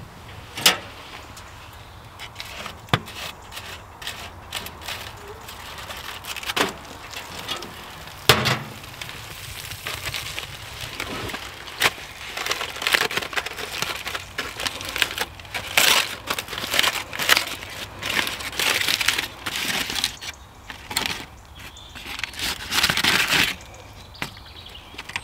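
A few sharp metallic clicks and knocks, as a small steel woodstove's door is opened. Then aluminium foil crinkling and rustling in repeated bursts as a foil parcel is handled and unwrapped.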